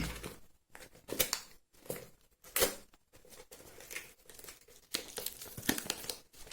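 Shipping packaging being torn open and crinkled by hand: a few separate sharp rips in the first three seconds, then a denser run of crinkling near the end.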